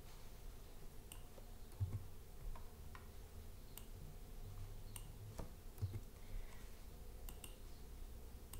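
Faint, irregular clicks of a computer mouse, about ten of them, with a few dull low knocks among them.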